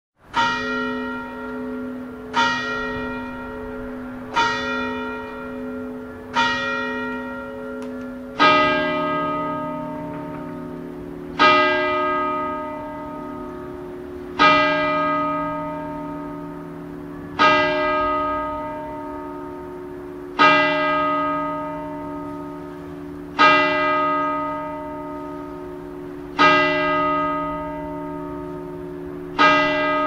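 Church bells tolling: a higher bell struck four times about two seconds apart, then a deeper bell tolling slowly about every three seconds, each stroke ringing on and dying away.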